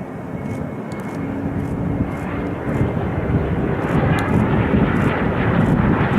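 Jet airliner's engines, a steady roar growing louder as the inbound jet comes in to land.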